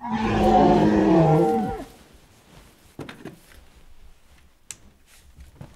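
A sudden loud, deep moan that starts at once, lasts nearly two seconds and drops in pitch as it dies away, followed by faint rustles and clicks.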